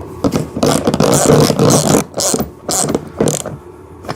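Ratchet wrench clicking as a 17 mm nut is run down onto a ride-on toy car's wheel axle. A long run of quick clicks fills the first two seconds, then three shorter bursts follow.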